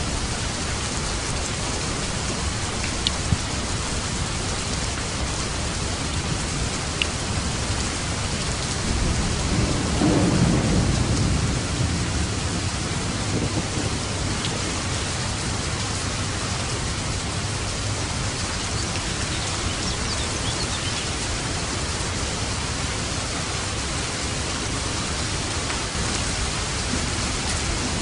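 Steady rain falling, with a low roll of distant thunder rising and fading about ten seconds in.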